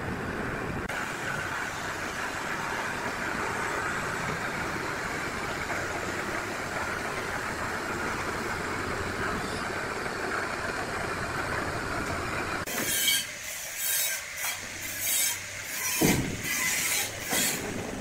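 Sawmill machinery running with a steady grinding noise. About two-thirds of the way through, the sound changes abruptly to a series of short hissing bursts over a low hum, with one knock among them.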